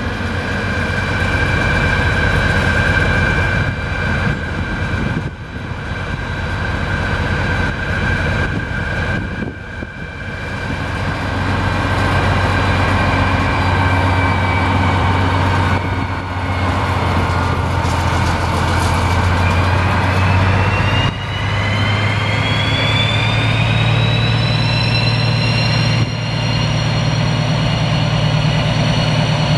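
DB class 218 diesel-hydraulic locomotive's V12 diesel engine running at idle with a steady low hum and whine. About two-thirds of the way through it revs up: the hum rises in pitch and a whine climbs steadily higher.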